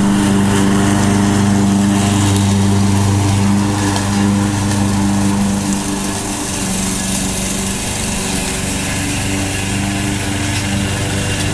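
Self-propelled gasoline walk-behind lawn mower running steadily as it drives itself through tall grass, its engine hum unbroken; it gets a little fainter about halfway through as the mower moves away.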